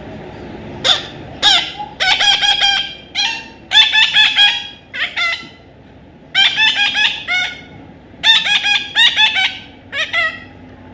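Parrot calling: loud, repeated squawking calls in several bursts, each a quick run of sharp, pitch-bending notes, starting about a second in.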